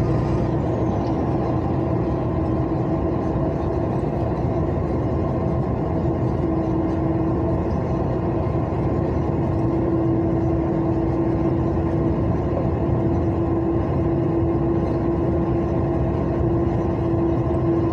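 Diesel truck cruising at steady highway speed, heard from inside the cab: an even engine and tyre drone with a constant hum.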